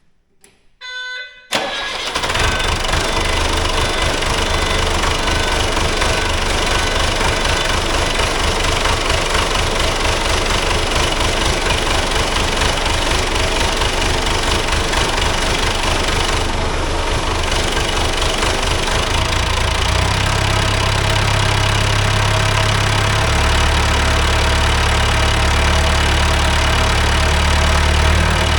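Perkins diesel engine of a Caterpillar 426 backhoe being started after a short tone, catching about a second and a half in and settling into a steady rhythmic idle, its first run on fresh oil and a new filter. The low rumble grows stronger about 20 seconds in and again a few seconds later.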